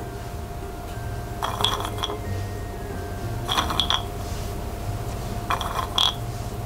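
Whole hazelnuts clinking and rattling against a glass bowl as a hand picks them out. The sound comes in three short bursts of clicks about two seconds apart.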